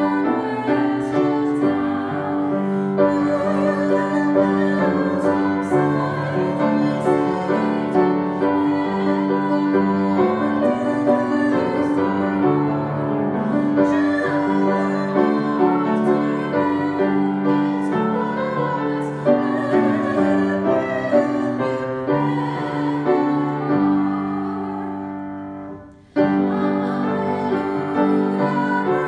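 Piano music that fades out about three-quarters of the way through, then starts again abruptly a couple of seconds later.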